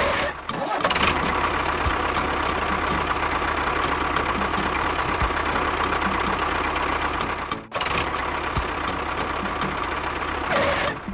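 Engine running steadily, with two brief dropouts about half a second in and near 8 seconds.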